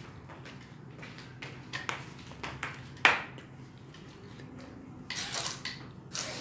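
Flip-flop footsteps on a tiled floor: a few scattered clicks and slaps, the sharpest about three seconds in, and a short scuff about five seconds in.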